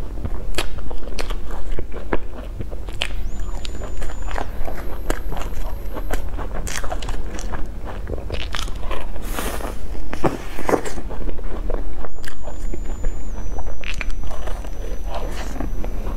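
Close-miked eating sounds of cream puffs with a crumbly topping: biting and chewing, heard as many small irregular mouth clicks.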